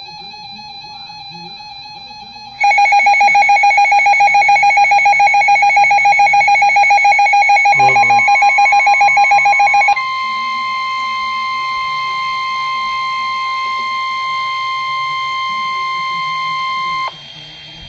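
Emergency Alert System attention tones sounding for a severe thunderstorm warning. A fainter steady tone becomes a loud, rapidly pulsing tone about two and a half seconds in. About ten seconds in it switches to a steady, slightly higher single tone, which cuts off shortly before the end.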